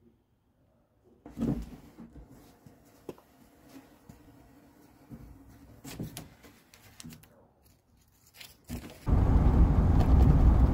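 Scattered knocks and clatter of wood and tools being handled in the back of a box truck, with one louder thump about a second in. From about nine seconds, a loud steady low rumble of driving noise heard from inside the vehicle's cab.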